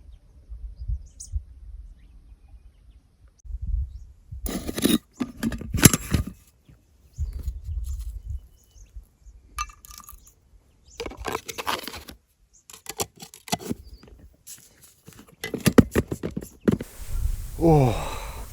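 Boots scrabbling on loose shale and rock, with trekking poles clacking down, in uneven bursts of scraping and knocks during a steep descent. Near the end comes a strained, voiced exhale of effort.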